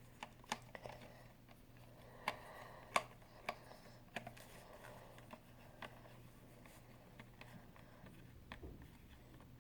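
Scattered light plastic clicks and taps from handling the Nerf Nite Finder's flashlight battery housing while it is clipped and pressed back into the handle against its spring. The clicks are faint and irregular, with a louder one about three seconds in, over a low steady hum.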